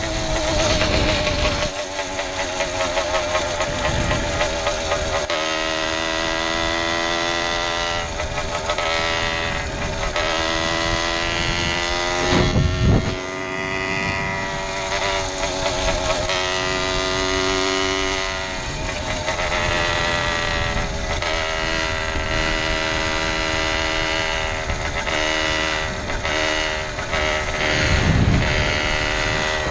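Case-reed two-stroke bicycle engine with a 47 mm piston running under way, a steady pitched engine note that drifts up and down with the throttle. Wind buffets the microphone in a few short gusts, the strongest about twelve seconds in and near the end.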